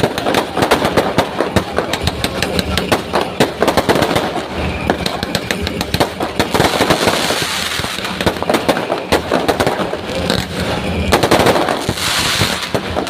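Fireworks going off in a dense barrage of rapid crackling pops and bangs, with louder clusters twice.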